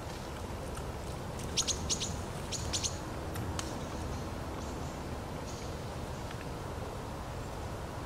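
Small songbirds chirping: two quick clusters of short, high notes, a little before and a little after two seconds in, with a few fainter chirps later, over a steady low background rumble.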